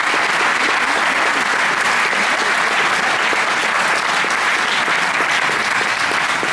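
Audience applauding steadily at the end of a speech, many hands clapping at once.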